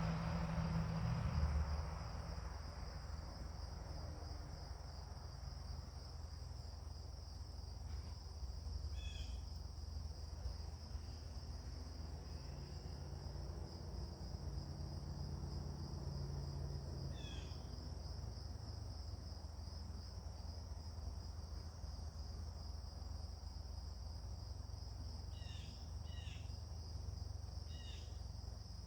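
Steady, high insect chirring, like crickets, with a few short descending bird calls: one about nine seconds in, one around seventeen seconds, and a quick cluster of four near the end. A low rumble underneath fades away in the first two seconds.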